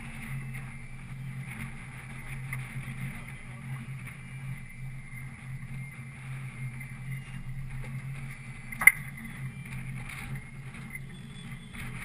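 Boat engine running steadily, with a single sharp click about nine seconds in.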